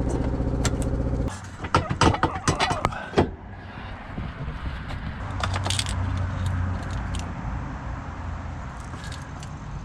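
A steady machine hum that cuts off about a second in, followed by a quick run of metal clanks and knocks, then a steady hiss of workshop noise.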